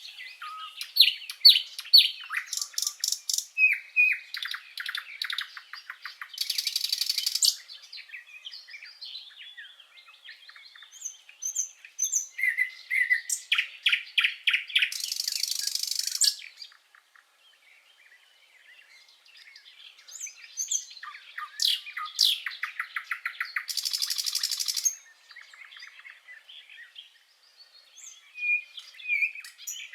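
Common nightingale singing in varied phrases of rapid repeated notes, whistles and trills, with three harsh buzzing rattles. The song breaks off for a short pause a little past halfway.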